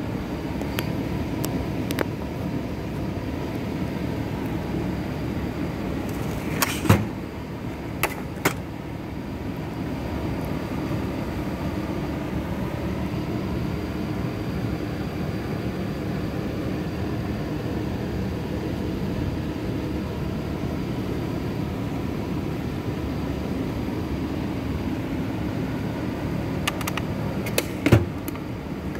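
Toolbox drawers being pulled open and pushed shut, with sharp metal clacks and knocks as they hit their stops and the tools inside shift, over a steady low mechanical hum.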